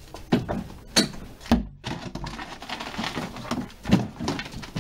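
A few short knocks and scuffs, the loudest about a second in and again about four seconds in: a toddler stepping about on paving slabs and grabbing and shoving a plastic ride-on toy car.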